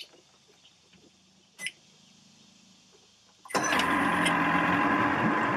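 Boat's outboard motor being started with the ignition key: quiet at first, then a sudden loud mechanical run from about three and a half seconds in that carries on to the end.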